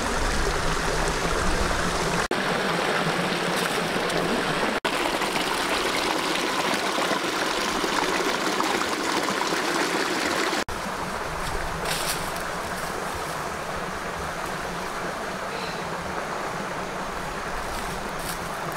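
Steady rush of running water from a small stream, cutting out for an instant three times. A few faint light clicks come about two-thirds of the way through.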